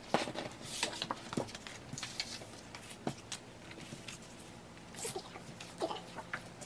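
Cardstock photocards, postcards and a paper album booklet being handled on a tabletop: scattered light taps of cards set down and picked up, with brief paper rustles as the booklet is flipped open.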